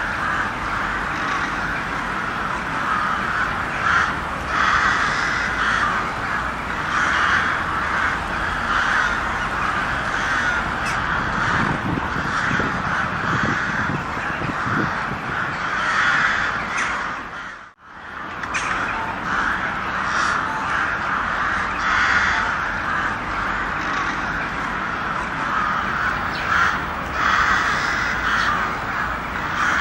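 A group of crows cawing continuously, many harsh calls overlapping, with a momentary cut-out about two-thirds of the way through.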